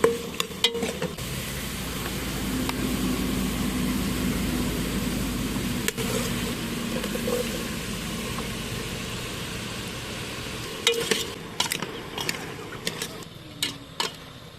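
Food sizzling steadily in a hot pan over a low rumble. In the last few seconds a utensil clinks and scrapes against the pan several times.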